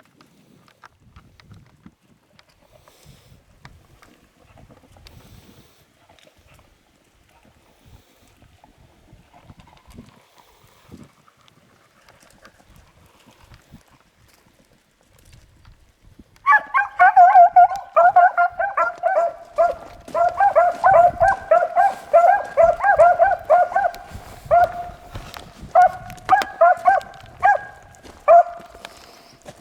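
Beagles baying on a rabbit's trail, a fast run of repeated bays starting suddenly about halfway through and going on almost to the end: the hounds are on the scent and running the rabbit. Before that only faint rustling and light thuds.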